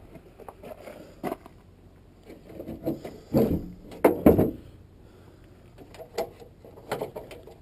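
Metal tools and transmission parts being handled: scattered clanks, knocks and rattles, loudest in a cluster of clanks about three to four seconds in, as tools are shifted about while searching for a screwdriver.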